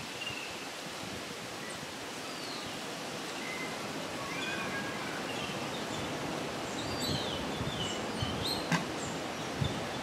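Outdoor ambience: a steady background hiss with scattered short chirps and whistles from small birds, and a single sharp click near the end.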